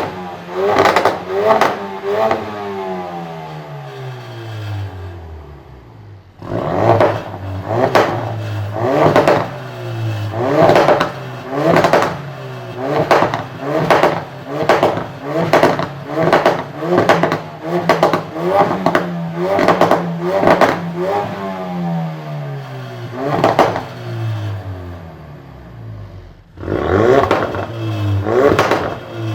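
2016 Ford Focus RS's 2.3 litre turbocharged EcoBoost four-cylinder, revved through its exhaust in quick repeated blips of about one a second. It falls back to idle twice, once in the first few seconds and again about two-thirds of the way through, before being blipped again near the end.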